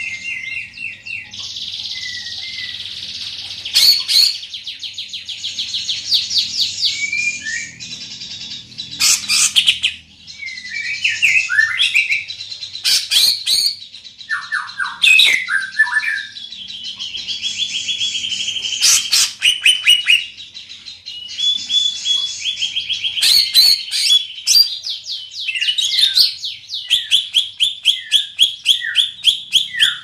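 Male greater green leafbird (cucak ijo) singing loudly and without pause: rapid trills and gliding whistled notes, with sharp loud clicks every few seconds.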